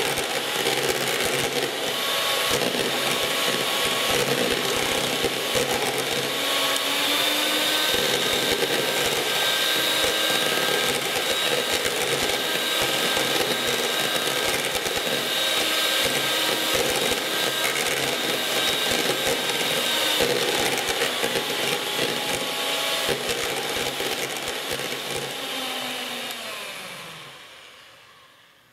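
Gorenje MGA M202 electric hand mixer from the 1980s running with its beaters whipping cream in a plastic bowl: a steady motor whine over the churning and ticking of the beaters in the cream and against the bowl. The whine steps up slightly in pitch about seven seconds in. Near the end the mixer is switched off, and its pitch falls as the motor winds down to a stop.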